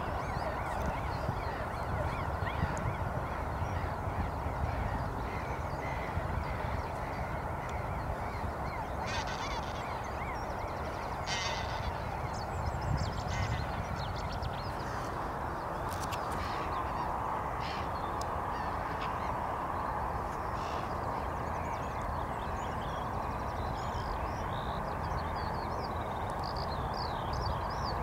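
A feeding flock of geese calling continuously, many overlapping honks merging into a steady chatter, with a low rumble underneath and a few short, higher calls of smaller birds scattered through it.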